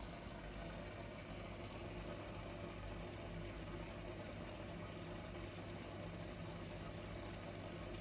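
Steady low hum of running aquarium equipment, with a faint hiss over it.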